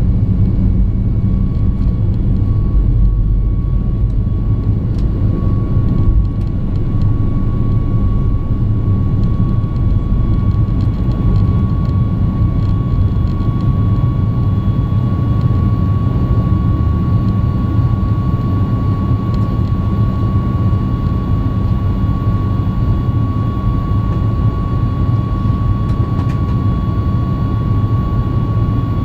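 Boeing 737 MAX 8's CFM LEAP-1B engines at takeoff thrust, heard from inside the cabin: a steady deep rumble with a steady high whine. The rough runway rumble of the takeoff roll eases about six seconds in as the plane lifts off, and the engines run on smoothly through the climb.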